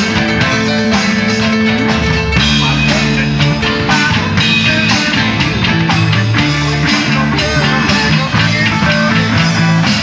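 Rock band playing an instrumental passage: guitars over an electric bass line, with a steady beat.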